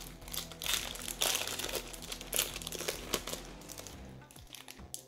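Foil booster pack wrapper crinkling as it is torn open, a dense cluster of rustles in the first three seconds, then quieter scattered rustling as the cards are handled.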